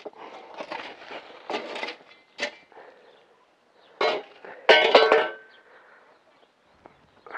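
A long-handled digging tool knocking and scraping against a concrete grave vault: a series of separate clinks and scrapes, with the loudest, ringing clatter about five seconds in as the tool comes down.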